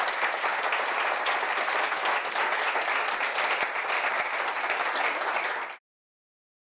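Audience applauding: dense, steady clapping from a room full of people, which cuts off suddenly near the end.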